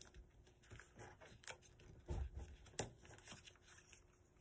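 Faint rustling and crinkling of a sheet of paper being flipped over and folded, with a couple of short sharp crinkles and a soft bump about two seconds in.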